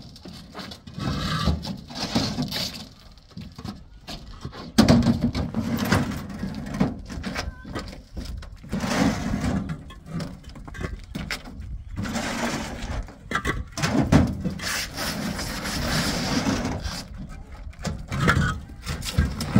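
Hollow concrete blocks being handled: irregular knocks and gritty scrapes as blocks are slid across a pickup truck bed and set down on one another, with a sharp loud knock about five seconds in.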